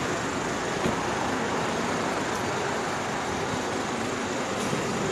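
Steady city street noise: road traffic running as a continuous, even hum.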